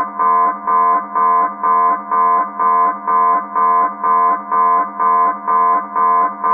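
Military submarine alarm: a pulsing electronic tone repeating about twice a second, over a steady low hum.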